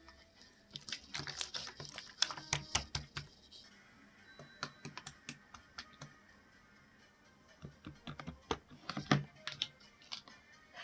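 Irregular run of short, sharp clicks and taps, close together for the first few seconds and sparser after, over faint background music.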